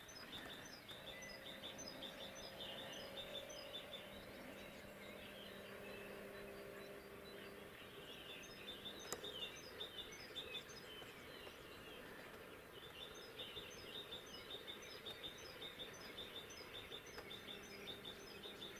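Faint birds chirping outdoors at night, in quick runs of short high notes that stop and start again several times, over a faint steady low hum.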